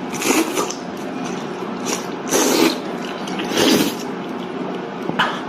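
A person eating noisily, with wet slurping and chewing mouth sounds coming in several loud bursts.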